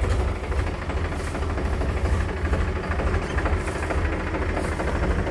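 Powertrac Euro 50 tractor's three-cylinder diesel engine running at low revs as the tractor reverses slowly, a steady low rumble.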